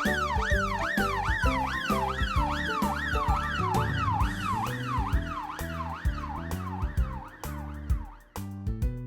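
Emergency-vehicle siren sweeping up and down quickly, about three sweeps a second, fading away near the end, over cheerful background music with a steady beat.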